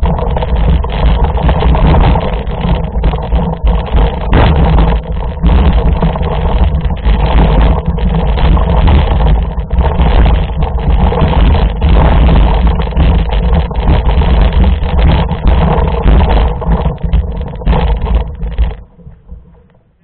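Loud, continuous rattling and rumbling from a camera mounted on a mountain bike as the bike is pushed over rail ballast and loose gravel. It cuts off about nineteen seconds in.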